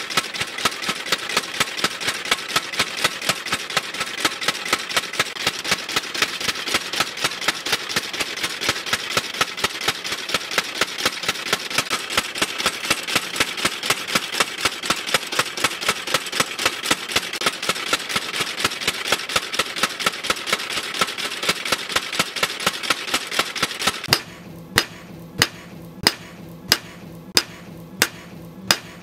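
Machine power hammer pounding red-hot leaf-spring steel in a fast, even beat of several blows a second over a steady mechanical din. Near the end it gives way to single hand-hammer blows on a post anvil, about three every two seconds, each one ringing.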